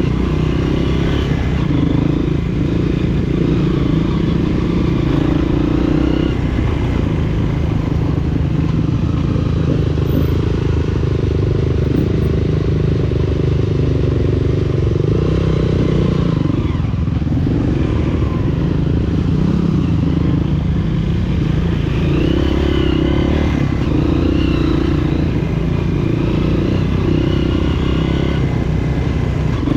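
Honda CRF230F's freshly overhauled single-cylinder four-stroke engine running steadily under way on the trail, heard from the bike, with some rattle and clatter over the ground.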